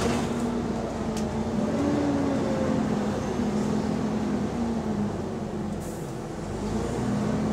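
Unrefurbished double-decker bus heard from inside on the upper deck: the engine cooling fan runs with a steady whine over the engine drone. The whine steps up in pitch about two seconds in and settles back, and a fainter higher whine rises and falls at the same time.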